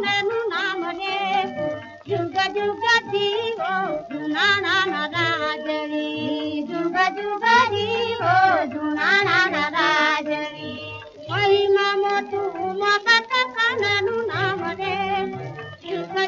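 Old recording of a praise song sung by Charan bards: a high voice singing wavering, ornamented lines over a low, regular beat.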